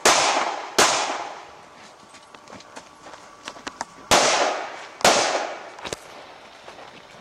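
Pistol shots in two quick pairs, one pair at the start and one about four seconds in, each crack ringing out for most of a second. Fainter sharp snaps fall in between.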